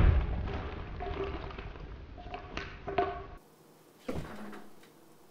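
A loud, sudden impact as a stuffed bag bursts open and scatters its stuffing, followed by a few seconds of rustling and knocks. A softer thump comes about four seconds in.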